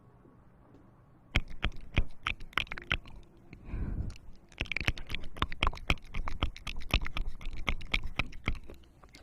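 A person chewing crunchy food close to the microphone: a run of sharp, irregular crunches a few times a second, starting about a second and a half in and stopping shortly before the end.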